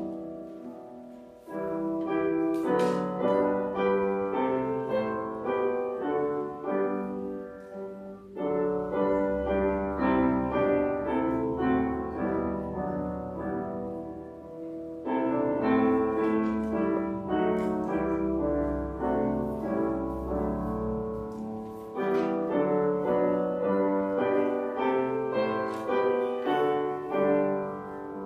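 Solo piano playing, its melody and chords falling into phrases that begin afresh about every seven seconds.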